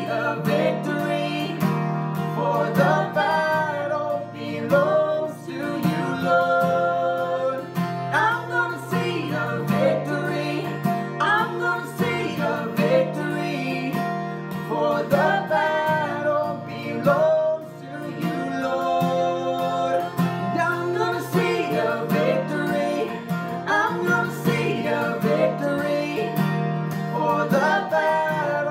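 A man and a woman singing together to a strummed acoustic guitar, repeating the same sung phrase several times over steady chords.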